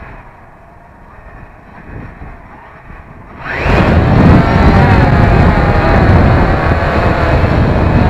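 Quadcopter drone's electric motors and propellers, heard from a camera mounted on the drone. About three and a half seconds in they spin up sharply to take-off power with a rising whine, then run loud with a buzzing propeller whine that wavers in pitch over a rushing noise.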